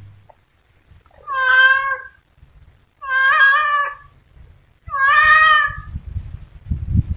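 Tabby cat meowing three times in long, drawn-out calls, each about a second long.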